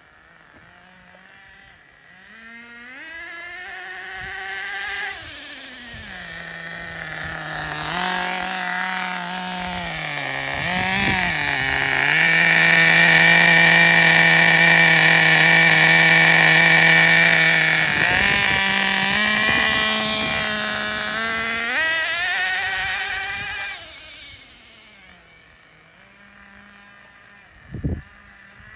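Traxxas Nitro Rustler's freshly broken-in Pro 15 nitro engine running, its pitch rising and falling with the throttle. It is loudest and holds a steady high pitch for several seconds midway, then fades to faint as the truck moves away. There is a short sharp knock near the end.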